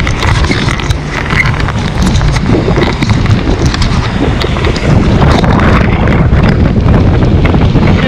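Gale-force wind blasting across the microphone: a loud, constant low rumble with scattered sharp ticks on top.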